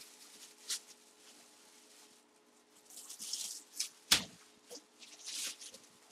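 Clear plastic bag crinkling and rustling in short bursts as it is worked over an object, with one sharp click about four seconds in.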